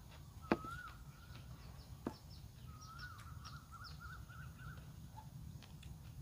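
Outdoor ambience with a bird whistling: a swooping whistled note, another near the middle, then a quick run of warbled notes, over a low steady rumble. Two sharp clicks sound, the louder about half a second in and a second one about two seconds in.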